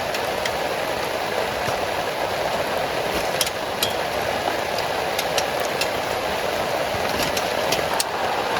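Heavy rain falling on a tent: a steady hiss with scattered sharp ticks of single drops.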